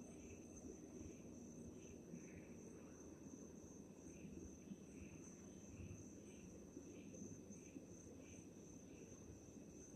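Faint night insects singing: crickets keep a steady high trill, while another chirps about every two-thirds of a second. Underneath runs a low, steady rumbling hum.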